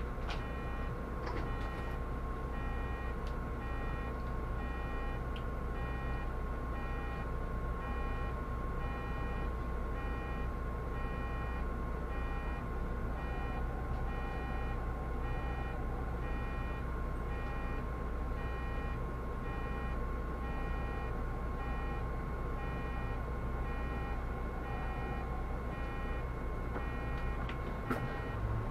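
Solaris Urbino 18 articulated city bus running with a steady low engine and road rumble, and a regular electronic beep repeating on top. A sharp click comes near the end.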